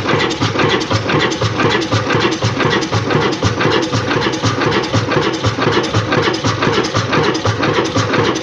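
40 HP Ruston diesel stationary engine running steadily with an even, rapid beat.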